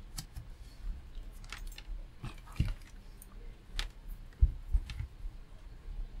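A few light clicks and knocks spread through: a Fluke 79 multimeter's rotary dial being turned to DC volts and its test probes handled on the bench.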